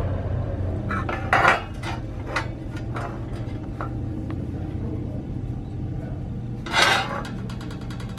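Metal parts being handled and set down, clinking and clanking in a handful of sharp knocks, the loudest near the end, over a steady low hum.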